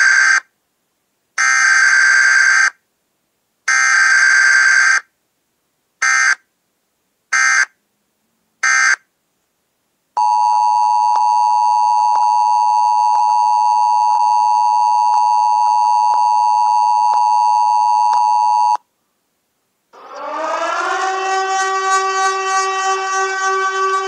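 Loud siren and alarm sound effects. First come six pitched blasts: three lasting about a second each, then three short ones. Then a steady alarm tone holds for about eight seconds, and near the end a siren winds up, rising in pitch and then holding.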